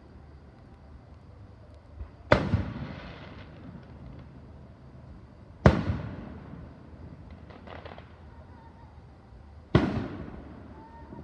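Aerial firework shells bursting overhead: three loud booms about three to four seconds apart, each trailing off in a long rolling echo, with fainter crackling in between.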